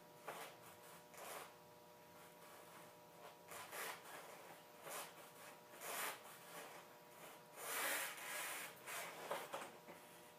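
Faint, irregular scuffs and rubs, about seven in ten seconds, from a trials motorcycle and its rider as he balances it standing still with the engine off. The biggest scuff comes about eight seconds in.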